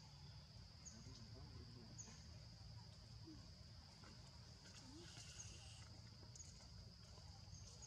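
Faint forest ambience: a steady high-pitched insect drone with short high chirps scattered through it.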